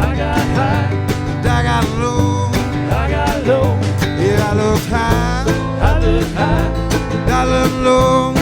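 Small acoustic string band playing live: acoustic guitar, mandolin, upright bass and a cocktail drum kit, with a steady beat and a bass line underneath.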